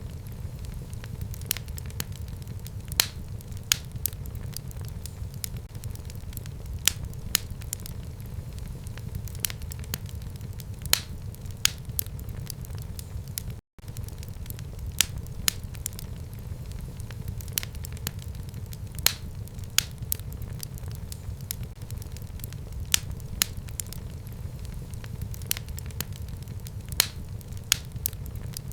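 Fire burning in a home fireplace: a steady low rumble of flames with sharp crackles and pops at irregular intervals. The sound cuts out for an instant about halfway through.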